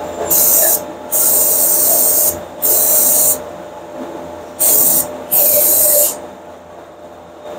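Aerosol cleaner sprayed in five short hissing bursts, the second one the longest, used to clean a part during an oil change.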